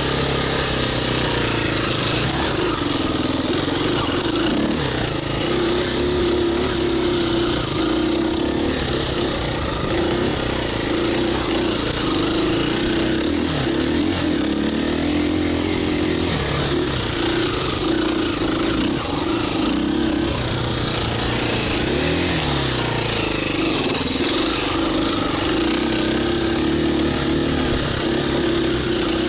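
KTM 350 EXC-F single-cylinder four-stroke dirt bike engine running continuously while being ridden, its pitch rising and falling with the throttle, including one quick rise and drop about 22 seconds in.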